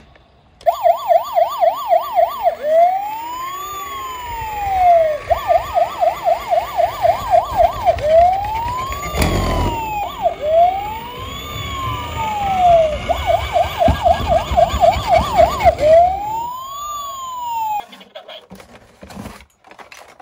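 Toy police car's electronic siren, switching back and forth between a fast yelp and slow rising-and-falling wails, over a low rumble of its wheels rolling down a wooden ramp. A sharp knock sounds about nine seconds in, and the siren cuts off a couple of seconds before the end, leaving a few handling clicks.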